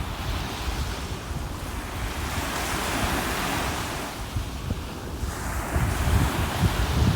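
Ocean waves washing, one surge swelling and fading about three seconds in, with wind buffeting the microphone in low gusts.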